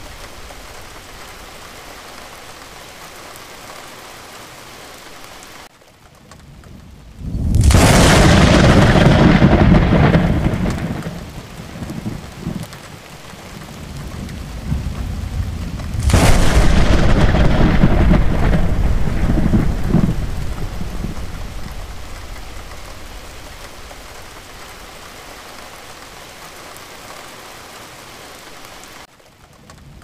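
Thunderstorm: steady rain, with two loud claps of thunder, the first about seven seconds in and the second about sixteen seconds in, each rolling off over several seconds.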